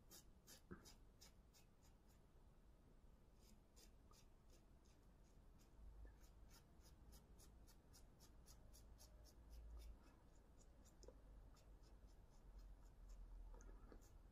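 Double-edge safety razor scraping through lathered stubble in short strokes, a faint crisp rasp a few times a second, during the first pass of a wet shave.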